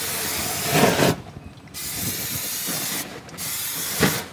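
Aerosol cooking spray hissing onto hot gas-grill grates in three long bursts, with short breaks about a second in and about three seconds in. The oil mist catches fire on the grates as it is sprayed.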